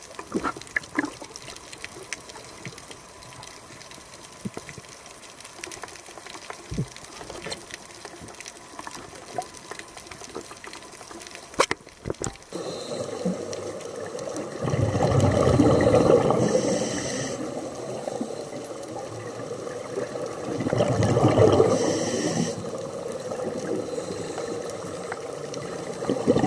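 Scuba breathing heard underwater: faint water noise with scattered clicks, then two loud bubbling bursts of exhaled air from a diving regulator about six seconds apart, each ending in a short hiss of an inhale, with a third starting near the end.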